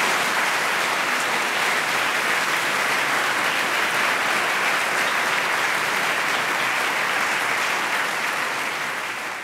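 Audience applauding steadily, dense clapping that tapers off near the end.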